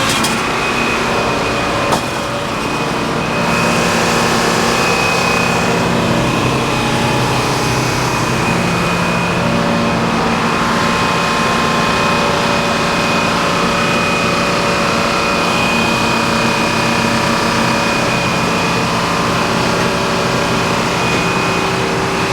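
Sawmill machinery running steadily under engine power, with a constant high whine over the engine, and a single sharp click about two seconds in.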